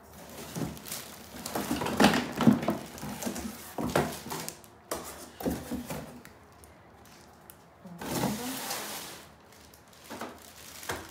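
Cardboard box and packaging being handled as a vacuum cleaner is pulled out: irregular scraping, rustling and knocks, loudest about two seconds in, with a longer rustle near the end.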